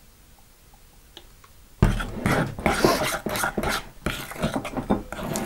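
Metal spoon stirring sticky glue slime in a glass bowl: quick, irregular wet scraping strokes that start suddenly about two seconds in. The slime is being thickened with contact lens solution and baking soda.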